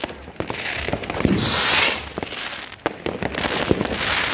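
Fireworks going off: scattered sharp bangs and crackles, with a loud rushing hiss lasting about half a second around a second and a half in.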